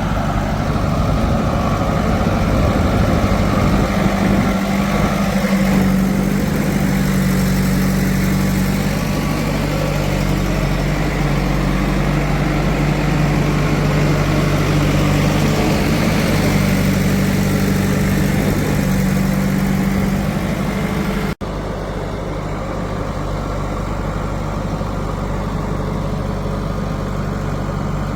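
Heavy diesel engine running steadily. It cuts out for an instant about 21 seconds in, then carries on a little quieter.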